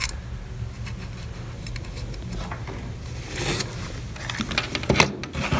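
Handling noise from unboxing gear over a low steady hum: scattered faint clicks, a brief rustle of packaging about three and a half seconds in, and a sharp click about five seconds in.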